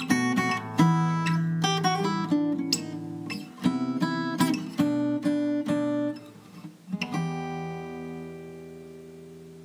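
Acoustic guitar music played with plucked notes, ending about seven seconds in on a final chord that rings and slowly fades.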